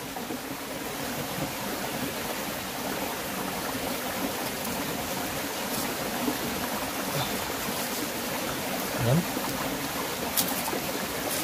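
Shallow rocky stream flowing steadily over stones, an even rushing noise. A brief low bump comes about nine seconds in and a short click near the end.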